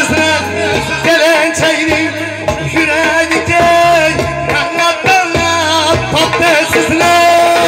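Live Uzbek folk music: a doira frame drum beats a steady rhythm under an electronic keyboard's bass and a wavering, heavily ornamented melody, with a man singing into a microphone.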